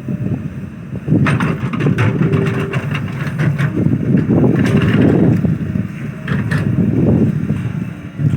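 Excavator at work: its engine running with a loud, uneven low rumble, and several sharp clanks over it.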